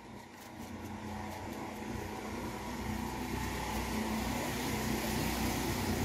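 A motor vehicle's engine rumbling, growing steadily louder.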